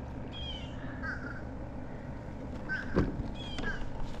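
Birds giving short, repeated curved calls, over a steady low wind rumble on the microphone. A single sharp knock about three seconds in.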